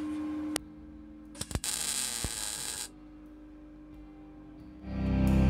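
A steady hum that cuts off about half a second in, then a few clicks and a MIG welding tack: a noisy burst lasting just over a second. Background music swells in near the end.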